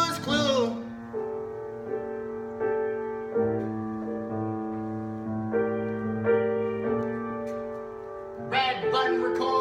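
Piano playing a slow passage of sustained chords and single notes, with a sung phrase trailing off at the start and a brief vocal phrase near the end.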